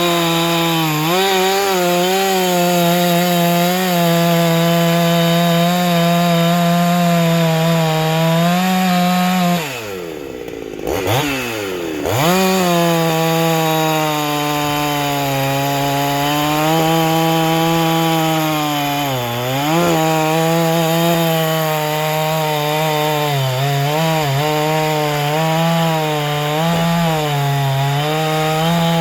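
Ported 372XP-clone two-stroke chainsaw running at full throttle, cutting wood, its high steady note sagging now and then under load. About ten seconds in the revs drop sharply and come quickly back up to full.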